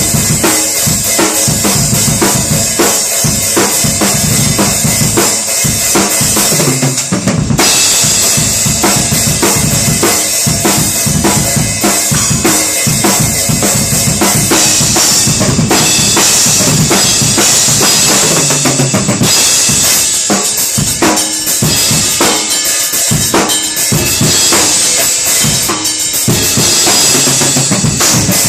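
Drum kit played freestyle: a continuous run of bass drum and snare strokes under steady cymbal wash, with short breaks in the cymbals about a third of the way in and again past the middle.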